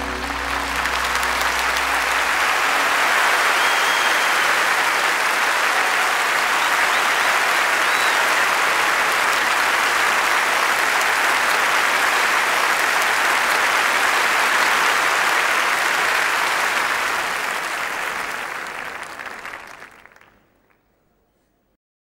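Steady applause from a crowd, fading out near the end.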